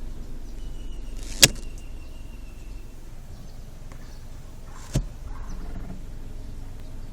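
Car with a low steady rumble, broken by two sharp clicks about a second and a half and five seconds in.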